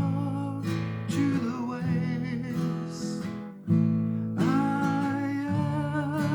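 Acoustic guitar strummed steadily, chords changing, in a solo song's instrumental passage, with a wavering melody line above it in the second half.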